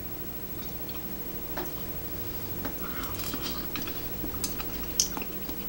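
Quiet mouth sounds of chewing tteokbokki rice cakes, with a few light clicks of chopsticks against the bowl over a steady low hum.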